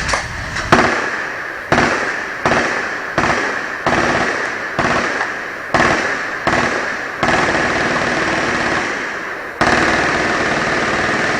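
Gunfire at an outdoor range: about a dozen loud reports at irregular intervals, each trailing off in a long echo.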